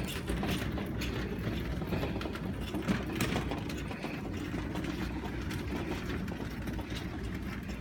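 Steady low mechanical hum with scattered clicks and knocks, the sounds of moving a refrigerator out.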